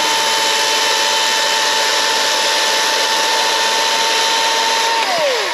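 Milwaukee M18 battery-powered top-handle chainsaw running unloaded at full speed: a steady whine of motor and chain that winds down with a falling pitch near the end.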